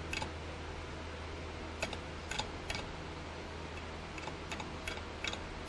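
Light, sharp taps at irregular intervals, about eight of them, as the head of a Clausing milling machine is tapped over a little at a time to bring it into tram.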